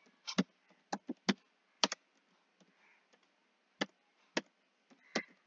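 Computer keyboard being typed on slowly: single keystrokes at uneven spacing, about nine in all, with longer gaps between small clusters.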